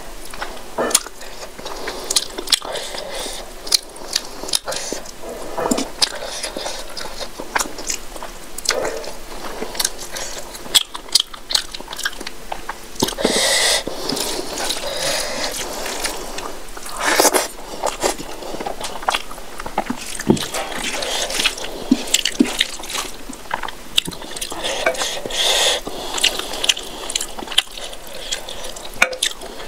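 Close-miked eating by hand: wet chewing and mouth clicks of rice and curry, with squelching as fingers mix rice with curry on the plate. Near the end, runny dal is poured from a bowl onto the rice.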